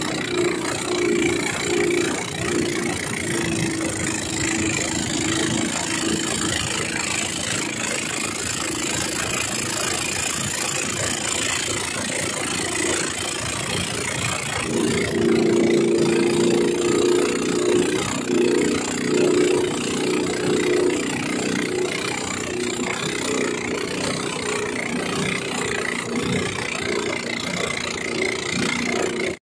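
Small racing-boat engines running at speed on the water, a steady engine drone that grows louder about halfway through.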